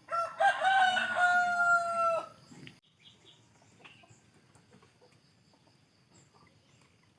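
Rooster crowing once, a call of about two seconds that ends on a long held note.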